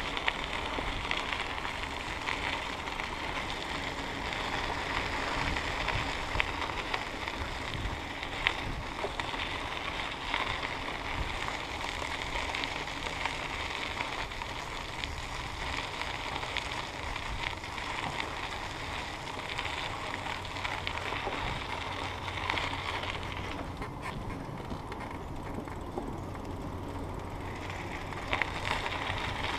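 Bicycle rolling along a paved trail, picked up by a handlebar-mounted camera: a steady hiss of tyres and air with small knocks and rattles from the bike over bumps. The hiss drops for a few seconds near the end.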